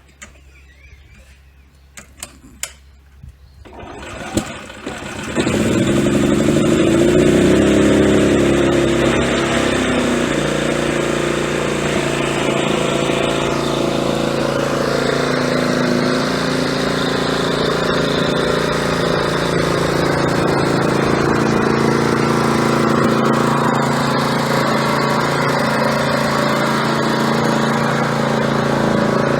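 Hyundai HY3200SEi inverter generator being electric-started: a few clicks, a brief crank, then the engine catches about five seconds in. Its pitch shifts for a few seconds before it settles into steady running.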